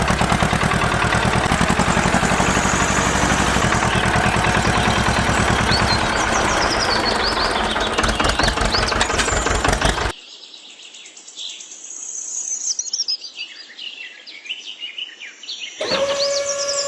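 Fast, even mechanical rattling for about ten seconds, which cuts off abruptly to birds chirping. A steady hum comes in near the end.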